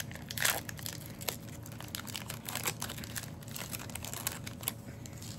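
Trading card booster pack wrapper crinkling as it is torn open and handled, in short, irregular rustles.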